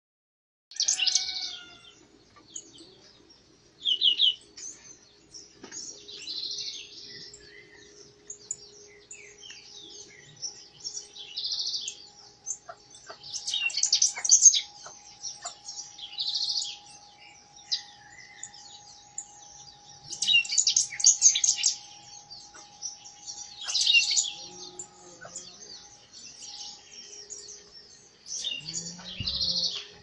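Euphonia (gaturamo) singing: short, bright, high phrases repeated every two to three seconds, with softer chirps between them.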